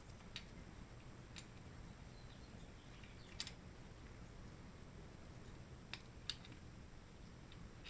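Faint scattered clicks and light taps, about five in all, the sharpest about three and a half and six seconds in, over a low steady hum: small tools and metal valve-train parts being handled while valve springs and keepers are refitted.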